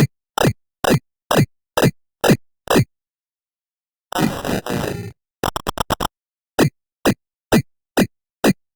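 Edited cartoon sound effect: a short plop that drops in pitch, repeated about twice a second with dead silence between repeats. About three seconds in it stops. A denser one-second burst and a quick stutter of rapid repeats follow, then the plops carry on.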